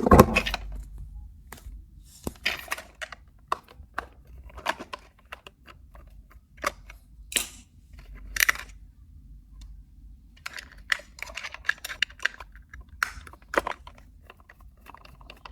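Toys being handled: scattered light clicks and taps at irregular intervals, with a denser stretch of small rattling clicks about two-thirds of the way through.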